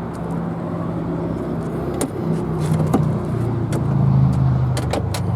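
BMW 325e's 2.7-litre straight-six engine running at idle, a steady low note that shifts slightly in pitch about halfway through, with a few sharp clicks over it.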